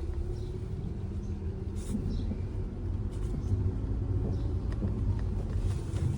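A car's engine idling with a steady low rumble, while short faint creaks and ticks come from the front suspension as the steering wheel is turned.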